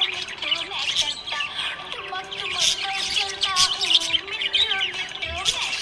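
A flock of small pet parrots chirping and chattering continuously in rapid high twitters, over a repeating melody in the background.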